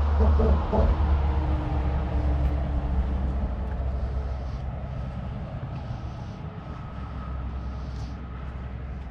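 Motor vehicle noise: a deep steady rumble with road hiss, loudest about half a second in and slowly fading.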